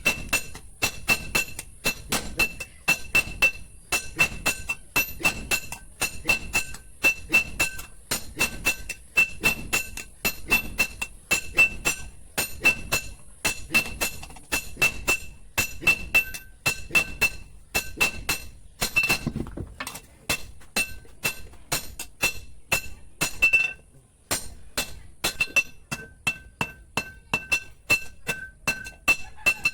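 Steel tiller harrow tine being forged on an anvil: a steady run of hammer blows, about three a second, each with a bright metallic ring. The blows break off briefly about three-quarters of the way through.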